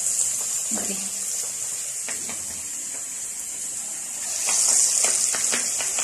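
Marinated chicken pieces deep-frying in hot oil, a steady high sizzle with scattered crackles that swells louder about four and a half seconds in.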